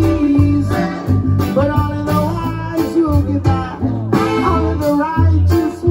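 Live band playing a blues-style number with guitar, bass and saxophone over a steady beat.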